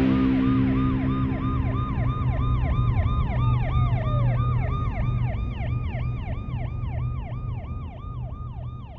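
Electronic emergency-vehicle siren on a fast yelp, sweeping about three times a second. A second steady siren tone winds down in pitch a few seconds in, over a low hum, and the whole fades out near the end.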